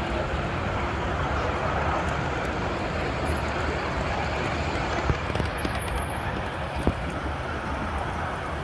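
Passenger cars of a 3-foot-gauge train rolling past, a steady noise of wheels running on the rails with two sharp clicks about five and seven seconds in.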